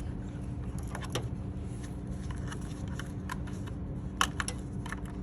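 Scattered small clicks and light knocks of parts being handled while the dishwasher's power is reconnected, over a steady low background hum.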